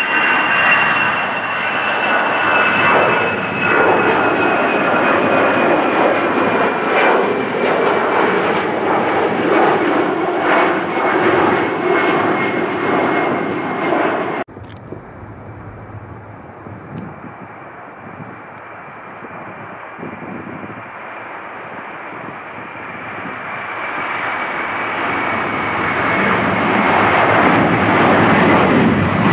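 Jet airliner engines at climb-out thrust: an Airbus A320-family twinjet climbing away, with a high whine slowly falling in pitch over the engine noise. About halfway through the sound cuts off suddenly to a quieter engine noise that builds steadily toward the end as an Airbus A330-200 takes off, its whine also drifting down.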